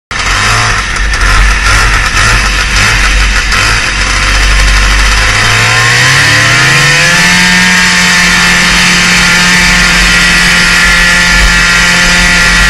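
Snowmobile engine, uneven and pulsing for the first few seconds, then climbing in pitch over about two seconds as the sled accelerates and settling into a steady high run.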